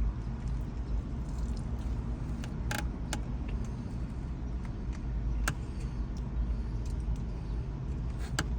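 Steady low rumble of a running vehicle engine, with a few faint clicks and smacks of someone eating saucy chicken wings.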